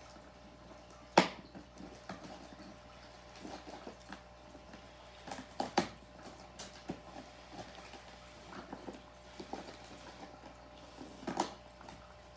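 Scattered knocks, taps and rustles of hands working on a homemade vending machine, with one sharp knock about a second in and a few more near the middle and end.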